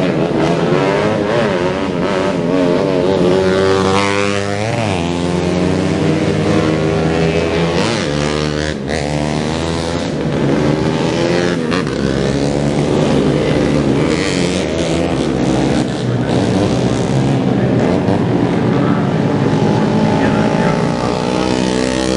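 Several 125cc four-stroke underbone race motorcycles running hard at high revs, their overlapping engine notes rising and falling in pitch.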